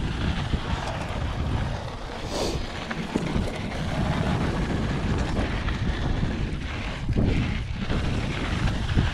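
Mountain bike descending a dry dirt singletrack: wind buffeting the bike-mounted camera's microphone over tyre noise on dirt and loose stones, with scattered small knocks from the bike.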